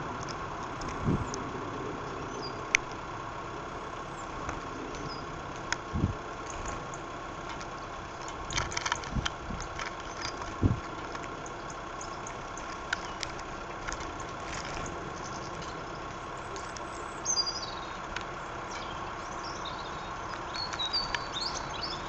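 Common blackbird pecking at grain on a wooden bird table: a few sharp, irregular knocks of its bill striking the seed and wood, over a steady hum. A few short high chirps from small birds come near the end.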